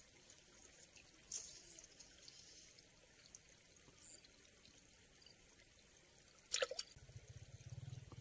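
Faint outdoor waterside ambience with a steady high-pitched hiss, a couple of sharp taps about six and a half seconds in, and a low engine hum rising near the end.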